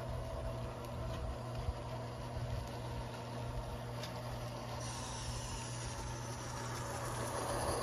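Diesel engine sound played through the small speaker of a sound-equipped HO scale model locomotive, running steadily, while a model train rolls past on the track. A higher hiss joins about five seconds in, and the sound grows louder near the end.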